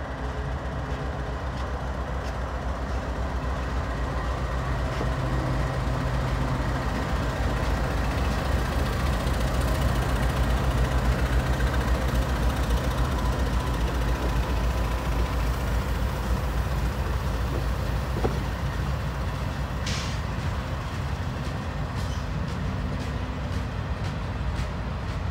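Two Union Pacific diesel freight locomotives passing close by, their engines running with a steady low drone that is loudest about halfway through. The first freight cars then follow, with a single sharp click near the end.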